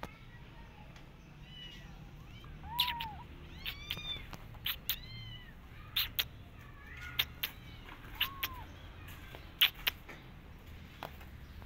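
Kitten mewing over and over in short, high-pitched calls, with a few lower, fuller meows among them. Several sharp clicks fall between the calls, the loudest near the end.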